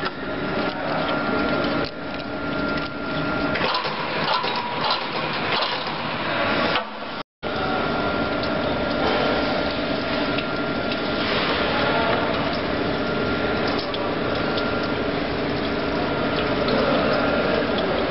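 Chain link fence making machine running: a steady mechanical din with a constant high whine through it, cut off for an instant about seven seconds in.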